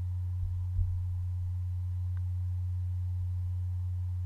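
Steady low electrical hum in the recording, unchanging in pitch and level, with a faint click just under a second in.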